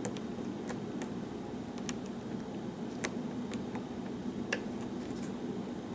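Small, irregular metallic clicks and ticks as a hook pick works the pins of a pin-tumbler challenge lock under tension, lifting and setting pins while picking.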